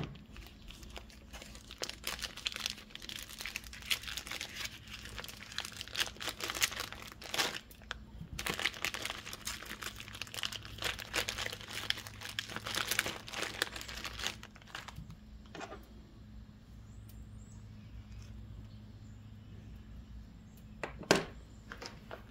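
Clear plastic sausage wrapper crinkling and tearing as hands peel it off smoked sausages, in bursts with a short pause partway through. The handling then gets quieter, and one sharp knock comes near the end.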